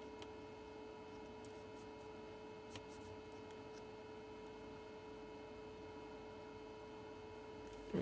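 Faint steady electrical hum: one steady mid-pitched tone with a fainter higher tone above it, and a faint tick about three seconds in.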